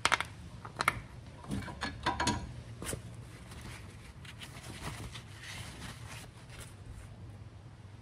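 A few sharp metallic clicks as parts at a car's rear brake caliper bracket are handled, then the rustle of a paper towel wiping the bracket and rotor.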